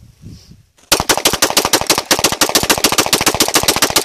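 A rapid, unbroken string of semi-automatic pistol shots, about nine a second, starting about a second in, from a Beretta 92 9mm and a Springfield XD .45 fired together.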